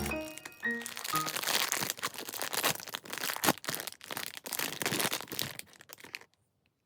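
Plastic blind-box packaging crinkling and crackling as it is handled and opened, a dense irregular rustle lasting about six seconds that cuts off suddenly near the end.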